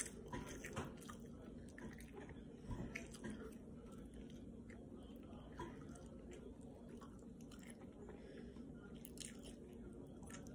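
Faint sounds of a person chewing a mouthful of eggs with spinach close to the microphone: scattered soft clicks and smacks of the mouth.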